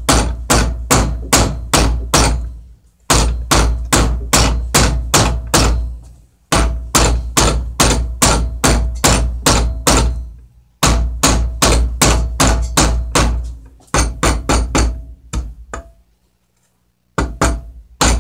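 Hammer blows flattening a 14-gauge copper wire on a steel bar: quick, steady strikes about four a second with a short metallic ring, in runs of a few seconds broken by brief pauses, the longest about a second near the end.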